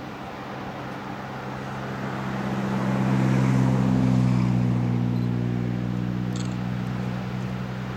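Motor vehicle engine hum that swells to a peak about halfway through and then fades, as if the vehicle drives past.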